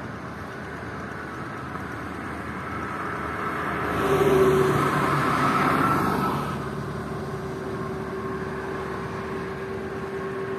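Toll-road traffic passing: a steady rush of tyres and engines, with one vehicle passing closest and loudest from about four to six and a half seconds in, its engine hum carrying on after it.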